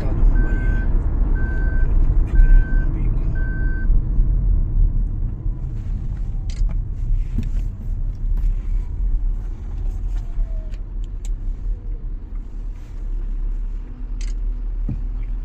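Road and drivetrain rumble inside a moving Maruti Suzuki Grand Vitara's cabin, easing as the car slows from about 80 km/h to walking pace. For the first few seconds the seat-belt reminder beeps about once a second, then stops.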